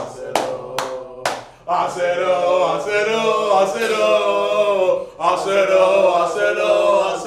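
A few quick hand claps, then a group of men singing a football chant together in two long phrases with a brief break about five seconds in.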